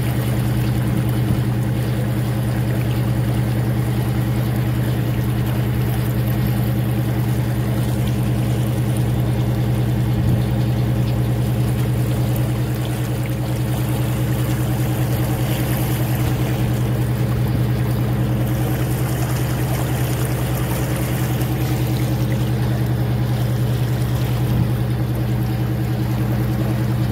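Tour boat's engine running with a steady drone, with water rushing along the hull.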